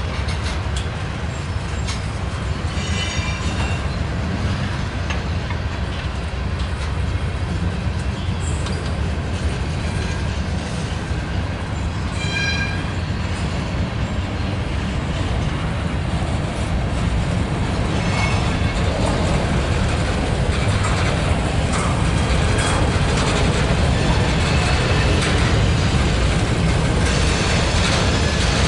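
Freight cars rolling past: covered hoppers, a gondola and coal hoppers, with steel wheels rumbling and clicking over the rail joints. A brief high-pitched wheel squeal comes twice, about 3 and 12 seconds in, and the rolling gets a little louder past the middle.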